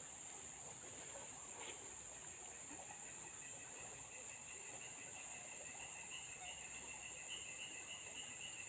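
Steady, high-pitched insect chorus, with a fainter wavering trill joining about three seconds in.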